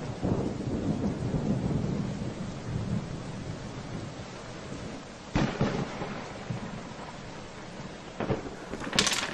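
Thunderstorm: a low rolling thunder rumble over steady rain, then a sudden sharp thunderclap about halfway through, with smaller cracks near the end.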